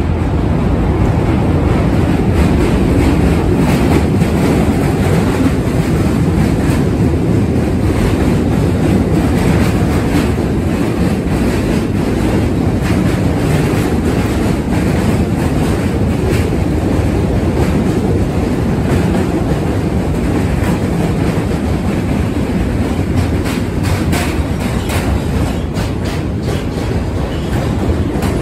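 Budd-built R32 subway train running past on a steel truss bridge: a loud, steady rumble of wheels on rail with a clickety-clack of rail joints, and a few sharper clicks near the end.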